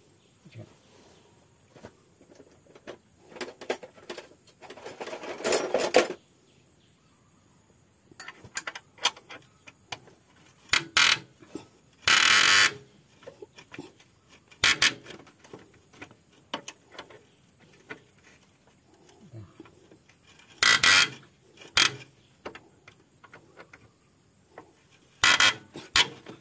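Tools working at a seized, tight-fitting part of a water pump during disassembly. Scattered short bursts of metal scraping and knocking come with long quiet gaps between them. The longest burst comes just under halfway through.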